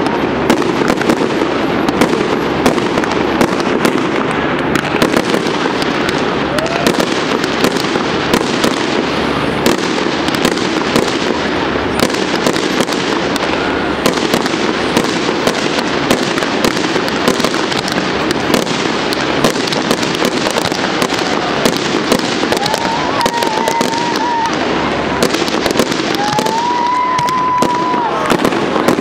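Fireworks display: a dense, continuous barrage of bangs and crackling from bursting shells. Two short whistling tones rise out of it in the last third.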